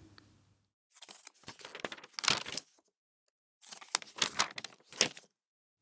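Two bursts of crackly, rustling noise made of many small clicks, each about a second and a half long, with dead silence around them: an edited-in sound effect over an animated title card.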